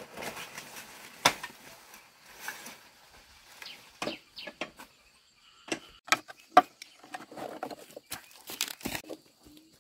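Dry leaves and broken banana plant debris rustling and crackling as they are handled and stepped on, with a scatter of sharp snaps and knocks, the loudest a little after the middle.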